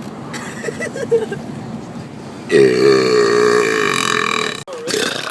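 A person belching: one long, loud burp starting about halfway through, held for about two seconds at a low, steady pitch and cut off abruptly.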